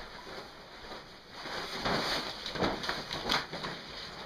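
Sail cloth rustling and swishing as it is pulled and spread out over a woven plastic tarp, in irregular handling noises that pick up after about a second and a half.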